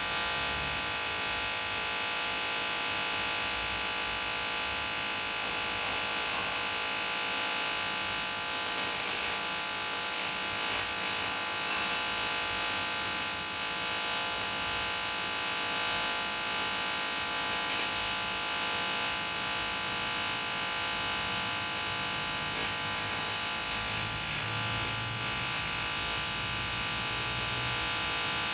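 AC TIG welding arc on an aluminium motorcycle cylinder block, giving a steady, unbroken buzz with a strong high hiss over it.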